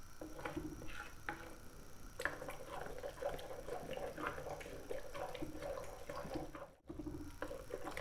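A masher working thick, wet mustard-greens saag with flour in a clay pot, making irregular soft taps and pattering.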